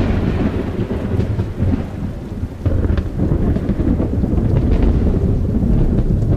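Thunder rumbling deeply over a steady downpour of rain, with a fresh surge of rumble about two and a half seconds in.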